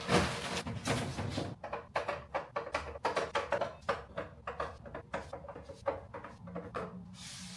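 Groceries being put away in a refrigerator: an irregular run of knocks, clicks and rustles as packages and bottles are set down on the shelves and in the door, busiest in the first second or so.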